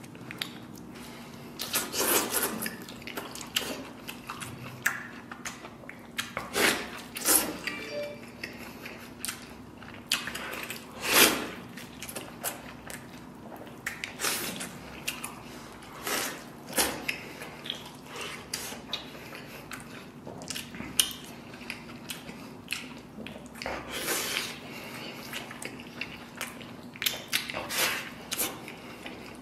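Close-up eating sounds: biting and tearing soft stewed lamb off the bone and chewing it wetly, in irregular bursts of short, sharp, wet noises.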